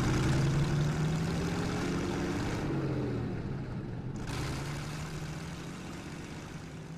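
Car engine running as the car drives away, loudest at first and fading as it recedes. A rushing hiss over it cuts off about four seconds in.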